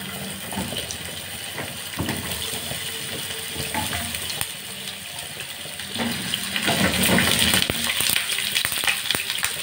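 Hollowed zucchini sizzling in a little hot oil in a granite grill pan as the pieces are laid in one by one, each landing with a light click. The sizzling gets louder about seven seconds in.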